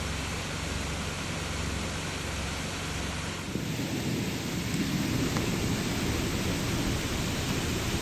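Swollen, flooding creek rushing: a steady hiss of running water that turns louder and deeper about three and a half seconds in.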